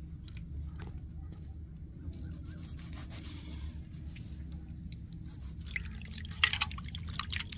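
Hands stirring and lifting squid rings in a steel bowl of water: splashes and drips, loudest over the last couple of seconds. A low steady hum runs underneath.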